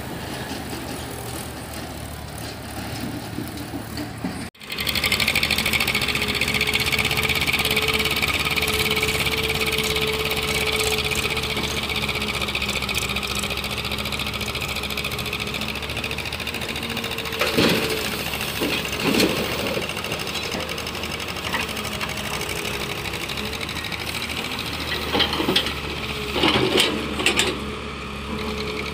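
Hydraulic excavator running steadily with a high whine while the bucket digs sandy soil. Short scrapes and knocks of the bucket on soil and stones come twice about two-thirds through and several times near the end. In the first few seconds, a tractor engine is running instead.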